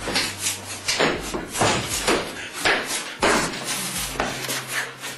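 A man swinging a long pole around like a staff weapon: a rapid series of short swishes and knocks, about two a second, over a steady low hum.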